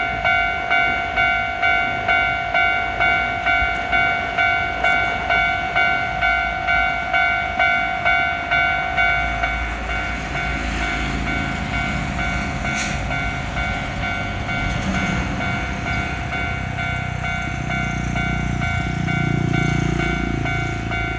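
Japanese level-crossing alarm bell ringing its repeating 'kan-kan' at about one and a half strokes a second. About ten seconds in, a train starts passing over the crossing, its low rumble and wheel noise rising over the bell, which keeps ringing.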